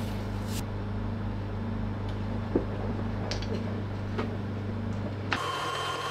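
KitchenAid stand mixer running steadily as it mixes chocolate sponge batter, with a few light clicks. About five seconds in, its sound shifts abruptly to a higher whirr.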